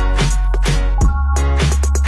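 Background electronic music with a steady drum beat and a deep, sustained bass.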